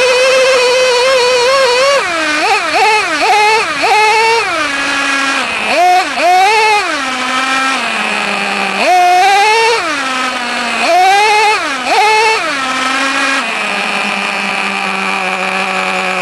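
Traxxas T-Maxx 2.5R nitro RC truck's small glow-fuel engine, heard close from a camera on the truck, revving up and dropping back in quick throttle blips, about a dozen times. Near the end it settles to a steady idle.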